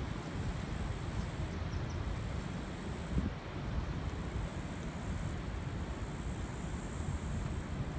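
Insects buzzing in a high, steady drone that swells and fades every couple of seconds, over a low rush of wind on the microphone.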